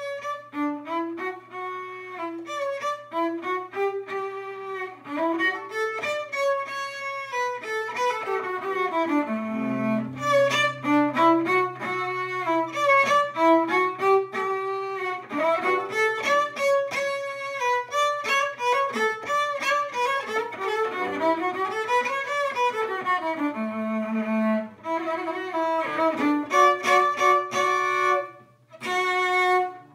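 Solo cello played with the bow: fast runs of notes rising and falling in arpeggio-like figures. The playing starts abruptly out of silence and breaks off briefly near the end before going on.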